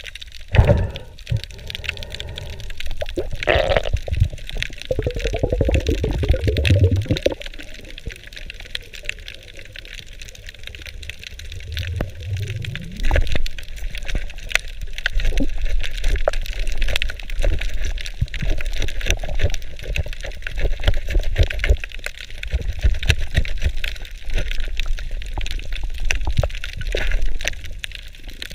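Underwater sound picked up by a diving camera: muffled water noise with many small clicks and crackles, and heavier low rumbling sloshes a few seconds in and again around the middle.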